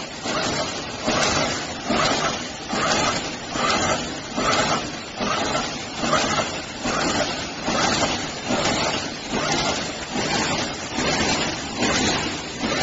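Automatic wire mesh welding machine running in a steady cycle, about three strokes every two seconds, as its row of welding electrodes welds each cross wire onto the line wires.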